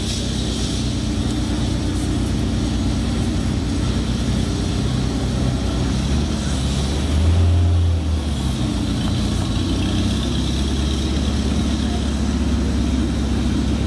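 A car engine idling with a steady low rumble, which swells briefly about halfway through.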